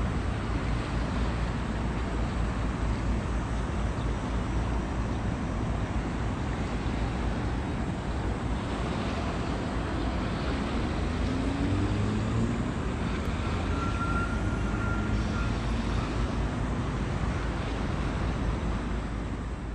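Wind buffeting the microphone over a steady rumble of passing ships' engines and water. A faint engine note rises in pitch about ten seconds in.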